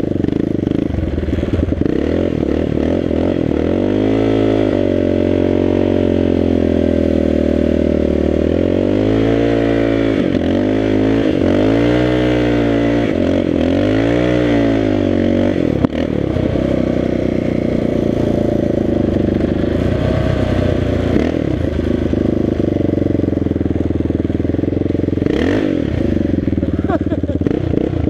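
Yamaha Raptor 660 ATV's single-cylinder four-stroke engine running under way, its pitch rising and falling several times in a row through the first half as the throttle is worked, then holding steadier.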